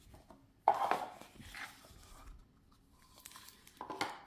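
A cardboard tarot deck box and its booklet being handled and set down on a table: a sharp knock just under a second in, a softer one shortly after, and light taps and rustles near the end.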